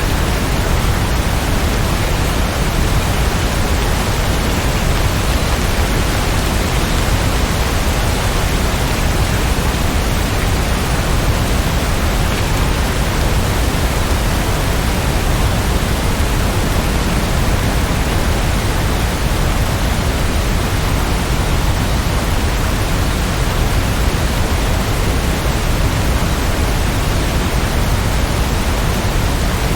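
Steady heavy rain: an even, unbroken rushing hiss with no thunder.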